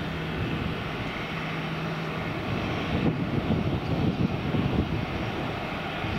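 Airliner engines running with a steady rush, a low steady hum underneath for about the first two seconds.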